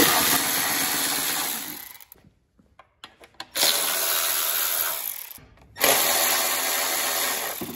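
Cordless electric ratchet running in three bursts of about one and a half to two seconds each, spinning out small bolts.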